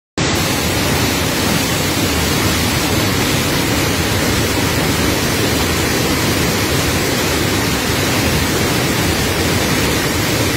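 Muddy flash-flood torrent rushing down a steep hillside channel: a loud, steady roar of water.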